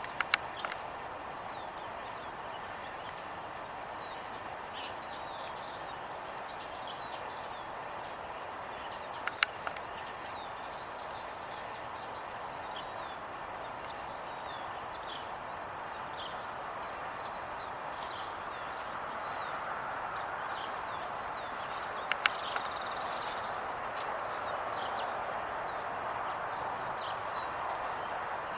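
Small birds chirping, with short high downward notes every few seconds, over a steady outdoor background hum. A few sharp clicks stand out above it, near the start, about nine seconds in and about twenty-two seconds in.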